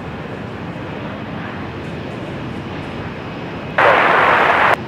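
Steady rushing noise of a Boeing 737-800 airliner's CFM56 jet engines on short final approach. About four seconds in, a loud burst of radio static cuts in and stops abruptly after just under a second.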